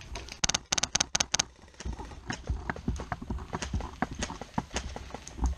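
Airsoft gun firing a rapid string of about half a dozen sharp shots, followed by more spaced, irregular shots and knocks.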